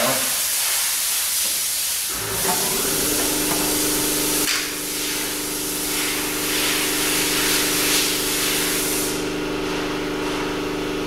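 A loud, steady hiss, joined about two seconds in by a steady machine hum; the hiss stops near the end while the hum carries on.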